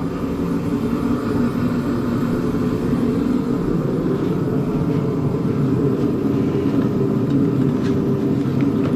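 Steady low rumble, continuous and even, with no distinct tool strikes.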